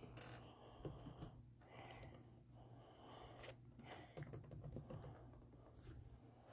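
Faint, scattered light clicks and taps, close to silence.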